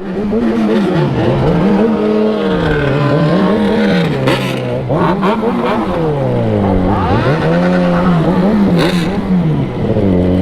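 Motorcycle engine being revved up and down over and over, its pitch swinging high and low about every two seconds, then settling to a steady pitch near the end.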